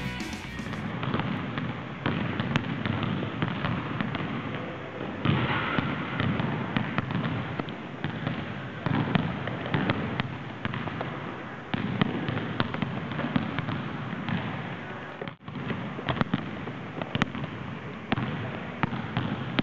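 Several basketballs being dribbled on a gym floor, with players' footsteps: a dense, irregular clatter of bounces. It breaks off for an instant about three-quarters of the way through.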